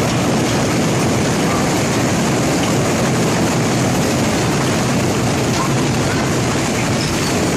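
Hail and heavy rain pelting down in a dense, steady hiss.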